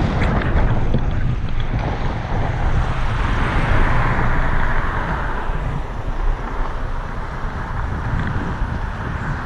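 Wind noise on the microphone of a GoPro on a moving car, with the car's road and tyre noise underneath: a steady, heavy rumble that comes and goes in strength.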